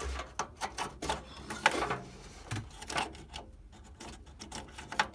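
Irregular clicks and plastic knocks of a desktop RAM stick being handled and fitted into a motherboard's memory slot, with one sharp click about one and a half seconds in.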